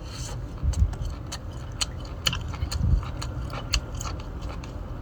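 A person eating shellfish: chewing, with scattered sharp clicks and small taps at irregular intervals.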